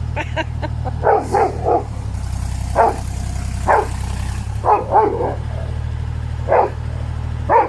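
A dog barking, about ten short barks at uneven intervals, over the steady low rumble of an excavator's engine running.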